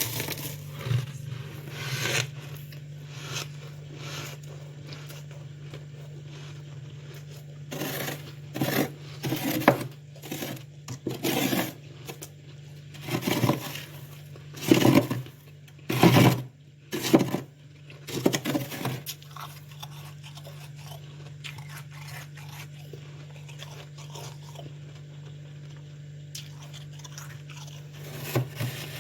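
Close-up crunching of freezer frost being bitten and chewed, in a dense run of crunches through the middle and only a few isolated clicks before and after, over a steady low hum.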